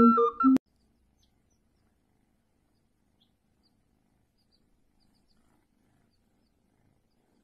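Background music with a flute-like melody stops abruptly with a click about half a second in. After that there is near silence, broken now and then by faint, high peeps of baby chicks.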